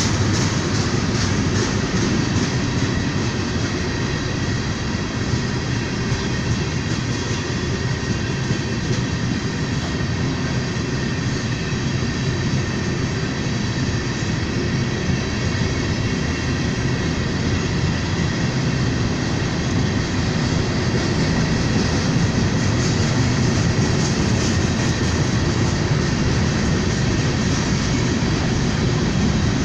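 Freight train rolling past steadily, a continuous rumble of wheels and cars on the rails with no horn sounding.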